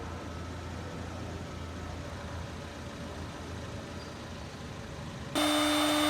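Steady low background hum, then about five seconds in a loud, steady motor whine cuts in abruptly, like a vacuum-type machine switched on.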